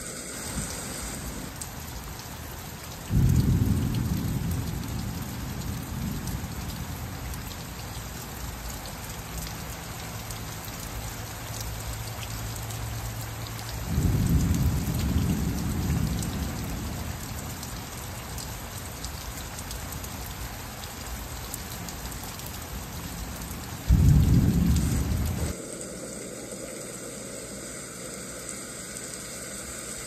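Steady rain falling, with three low rolls of thunder that break suddenly and die away: about three seconds in, about halfway, and near the end, where the last one cuts off abruptly.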